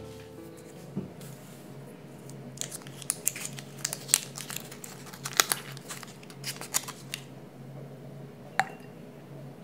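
Foil wrapper of a small cube being peeled open by hand, crinkling in a run of sharp crackles for several seconds, followed near the end by one sharp tap.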